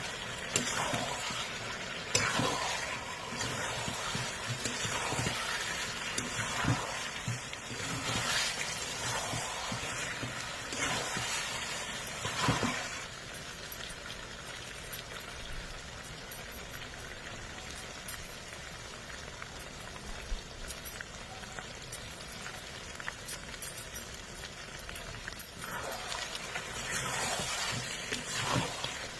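Food sizzling in a pan while it is stirred, with repeated scraping strokes of the spoon in the first half and again near the end, and a steadier sizzle between.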